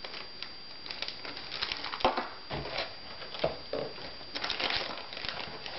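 Plastic-bagged parts and a cardboard box rustling and crinkling as hands rummage through them, with scattered light clicks and knocks.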